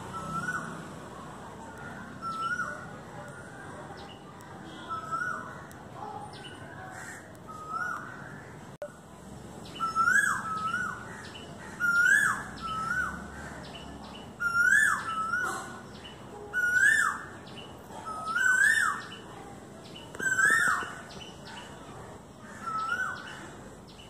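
Common hawk-cuckoo (brainfever bird, Tamil 'akka kuruvi') calling: the same short two-part call, a rising note that drops away, repeated about once every two seconds. The calls grow louder through the middle of the series and fade again near the end.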